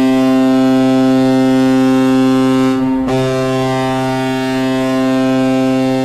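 Sibir Novosibirsk's goal horn sounding a loud, steady, low note. It breaks off briefly about three seconds in, then blasts again.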